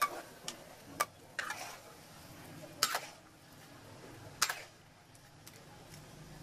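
A metal spatula scraping and knocking against an aluminium pan while boiled noodles are lifted out of the cooking water: five or six short scrapes and clicks about a second apart, the longest and loudest about three and four and a half seconds in.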